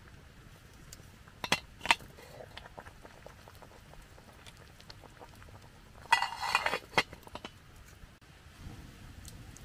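Cooking utensils clinking and knocking: two sharp clicks, then a brief ringing clatter about six seconds in.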